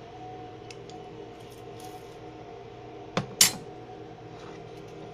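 A hand-held metal lime squeezer is pressed over the bowl, then gives two sharp metallic clacks a little past three seconds in as it is set down. A steady hum runs underneath.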